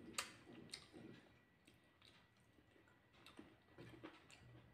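Faint sounds of eating rice by hand: scattered soft, irregular clicks and ticks of fingers on the plate and chewing.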